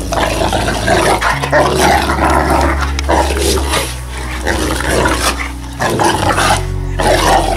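Cane Corso growling during rough play, mouthing a person's hand, with irregular rough bursts throughout.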